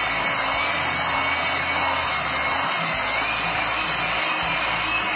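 Electric hand mixer running steadily, its beaters churning a thick, crumbly coconut biscuit dough in a glass bowl: a loud motor whirr with a high whine that rises slightly about three seconds in. It cuts off suddenly at the end.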